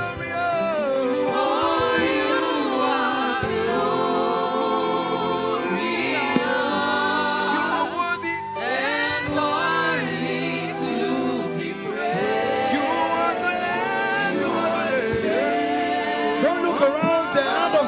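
Gospel worship music: voices singing slow, gliding lines over sustained held chords.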